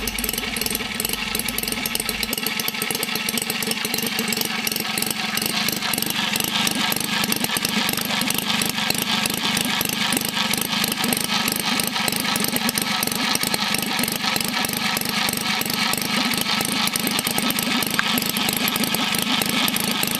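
Scale-model Holt four-cylinder engine running steadily, with a fast, even firing rhythm that holds the same speed throughout.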